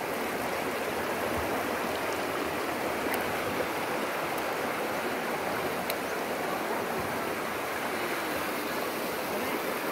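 Shallow, rocky stream rushing steadily over stones in small rapids.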